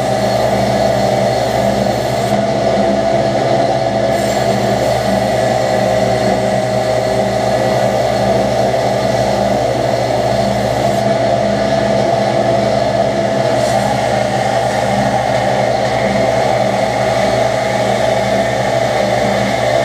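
Knifemaker's belt grinder running steadily with a constant motor hum. The hiss of steel on the belt eases off twice, as the blade is lifted away.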